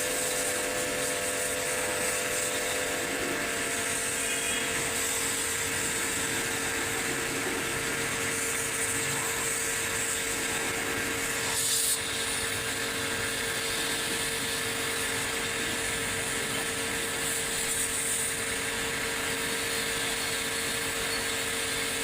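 A machine running steadily: an even whirring hiss over a constant hum, with one short knock about twelve seconds in.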